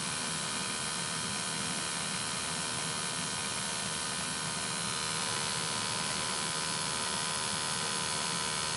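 Steady hum and hiss of a freshly installed gas-fired boiler running and heating up, its burner firing during a combustion test, getting a little louder about halfway through.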